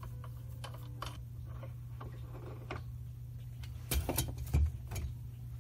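Metal parts of a centrifugal casting machine's arm assembly clicking and tapping as they are handled and lifted off the shaft. A short cluster of louder metal clunks comes about four seconds in, over a steady low hum.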